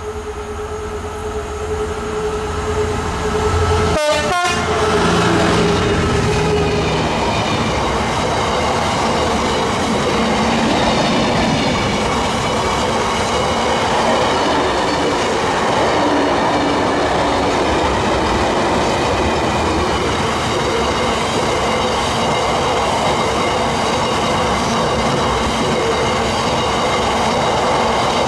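Class 66 diesel-electric freight locomotive, with its two-stroke EMD V12 engine, passing close by. Its engine note drops as it goes past about four seconds in. A long rake of box wagons follows, rumbling and clattering over the rails with a faint high steady squeal from the wheels.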